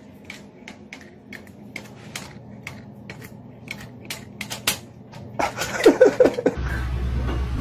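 A run of irregular sharp clicks, then a cat gives a loud, noisy vocal outburst with a wavering pitch lasting about a second. Near the end the sound cuts to a steady low hum.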